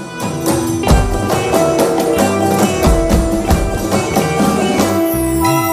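Background music with a steady percussion beat over sustained instrumental notes.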